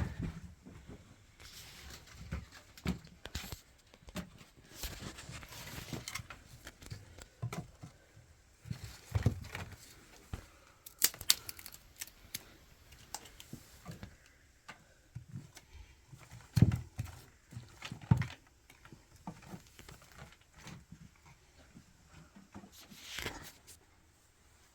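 Irregular knocks, taps and rustling, like things being handled, with a few louder knocks about halfway through.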